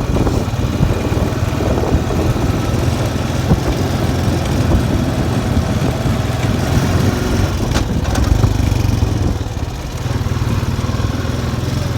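Small off-road vehicle engine running steadily while riding, easing off briefly about ten seconds in.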